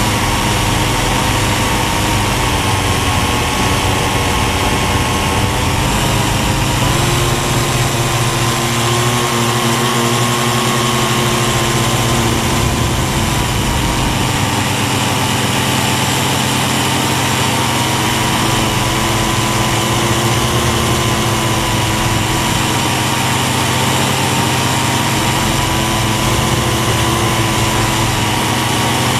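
Syma toy quadcopter's small motors and propellers buzzing in flight, heard up close from the camera on board: a steady high whine whose pitch wavers slightly as the motors adjust.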